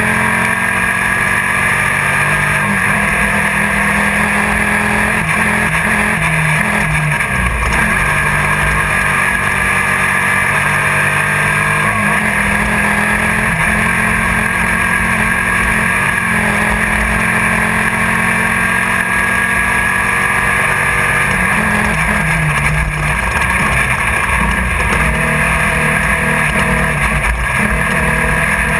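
Class 1600 off-road race car's air-cooled Volkswagen engine running hard at speed, heard from inside the car, its pitch rising and falling as the revs change.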